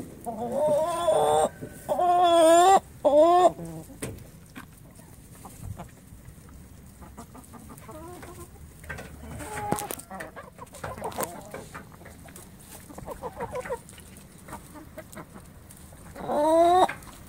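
Chickens calling close up: several loud, drawn-out calls in the first few seconds, softer repeated clucking in the middle, and another loud call near the end.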